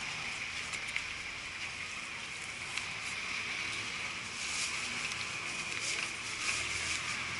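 Steady background hiss and hum of outdoor market ambience, with a few faint clicks and knocks.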